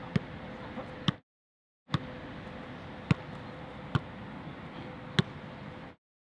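Football being juggled and kicked, six sharp thuds of foot and thigh touches on the ball about a second apart, over a steady outdoor background. The sound cuts out to silence twice.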